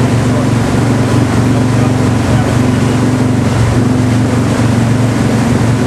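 Boat engine running at a steady, low drone under a broad hiss of wind and water.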